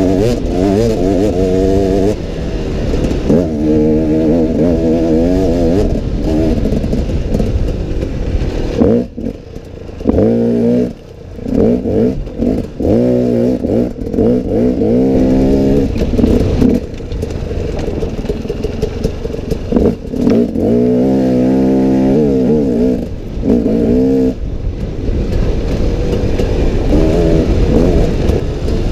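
Husaberg TE 250 two-stroke enduro motorcycle engine revving up and down under riding load, its pitch rising and falling repeatedly. The engine note drops away briefly about nine seconds in, then picks up again.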